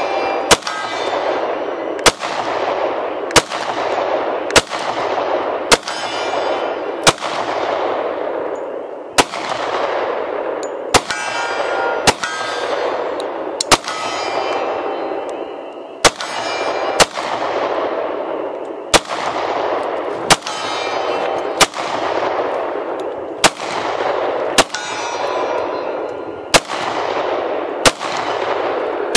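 Kriss Vector 10mm firing a long string of single shots at an even pace, about one every second and a quarter. Each sharp crack is followed by a long ringing echo.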